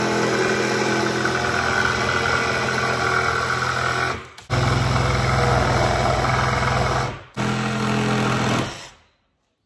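Cordless jigsaw cutting through plywood, running in three stretches with two brief pauses, then stopping shortly before the end.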